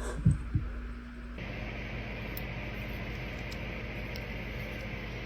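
Two short, soft low thumps, then from about a second and a half in a steady hiss with a low hum.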